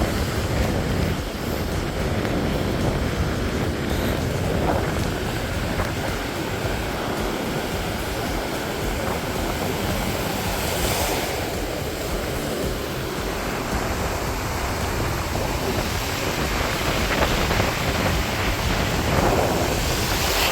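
Big surf breaking on a beach, with wind rumbling on the microphone. The wash swells loudest about halfway through and again near the end.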